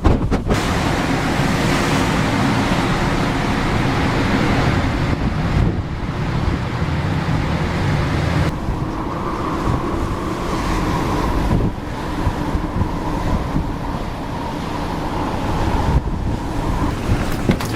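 Ship at sea in rough weather: wind and breaking waves over a steady low engine rumble, changing abruptly several times between cut shots.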